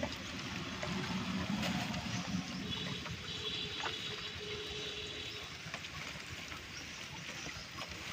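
Quiet handling noise of a mesh trap net full of crabs being lifted and shifted in a wooden boat: soft rustling with scattered light clicks over faint water sounds.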